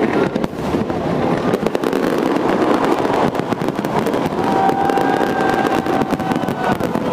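Fireworks going off: a dense, continuous crackle of many rapid small bangs, with a few thin sustained tones coming in past the halfway point.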